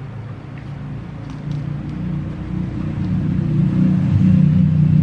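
A motor vehicle's engine rumbling, growing steadily louder.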